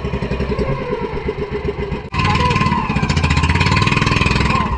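Small fishing boat's engine running with a rapid, even putter; about two seconds in it cuts out for an instant and comes back suddenly louder and harsher.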